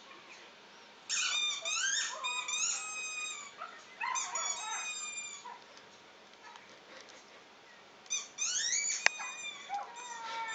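A small dog whining and yelping in three runs of short, high-pitched cries that fall in pitch, played through a laptop's speakers. A single sharp click about nine seconds in.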